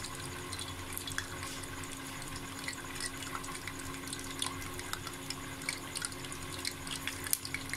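Pakoras deep-frying in hot oil in a pan: a steady sizzle with many small crackles and pops.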